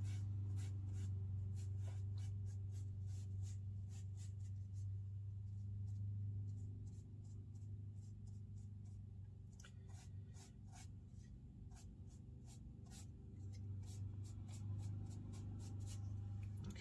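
Hake brush dabbing and scratching across watercolour paper to texture the foreground: a run of quick, dry, irregular taps, over a steady low hum.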